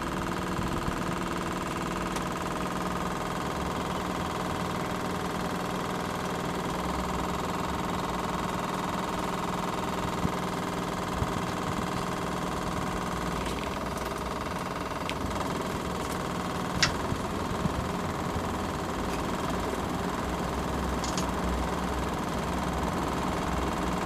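Air conditioner outdoor unit running with a steady hum and a rattling rotation noise, plus a few sharp clicks about ten, eleven and seventeen seconds in. The rattle has not been cured by two repairs.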